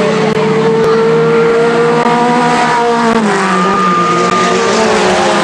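Mini stock race cars' four-cylinder engines running hard on a dirt oval, several engines heard at once at different pitches. About three seconds in, some engine notes drop as the cars back off, while another holds a higher note.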